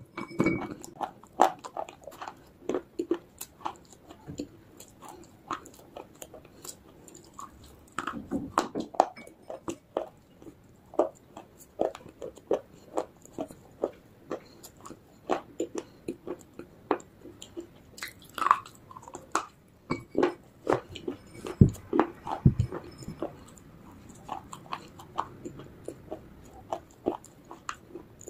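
Baked clay being bitten and chewed close to the microphone: sharp, dry crunches about a second apart, irregular, with softer grinding between them.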